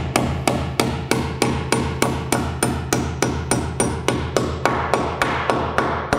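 Hammer driving nails through a sub fascia board into the rafter tails: sharp, even blows about three a second.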